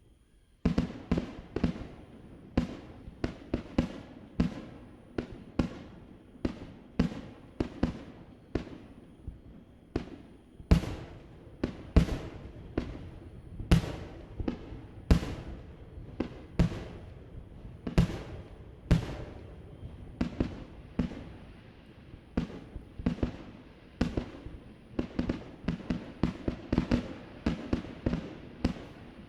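Fireworks display: aerial shells bursting in a rapid barrage, sharp bangs about two a second that start about half a second in and keep going, each trailing off, with some louder bangs standing out. A faint steady high tone runs underneath.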